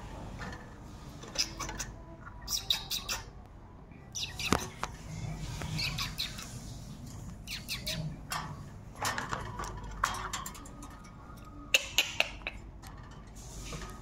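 Caged rose-ringed parakeets giving short, high squawks and chirps in scattered bursts, the loudest near the end, with one sharp click about four and a half seconds in.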